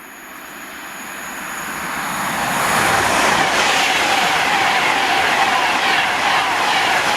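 Class 390 Pendolino electric train coming past on the rails. The rumble of wheels and rushing air grows steadily louder over the first three seconds, then holds loud and steady as the train goes by.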